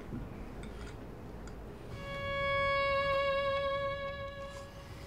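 Violin playing one long bowed note with a slight vibrato, coming in about two seconds in, swelling and then fading away.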